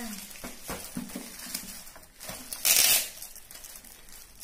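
Metallic foil gift wrap crinkling and rustling as it is handled and pulled open, with one louder crackling burst lasting under half a second about two and a half seconds in.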